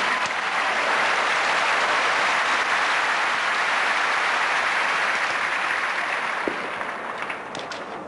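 Audience applauding, a dense steady clatter of clapping that dies down over the last second or so. A single sharp knock sounds about six and a half seconds in.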